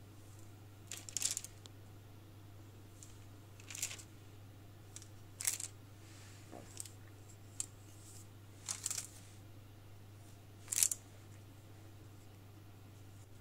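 Stainless steel cookie cutters pressed down through rolled marzipan dough onto baking paper and lifted away: about seven short soft taps and rustles a second or two apart, the strongest about eleven seconds in, over a low steady hum.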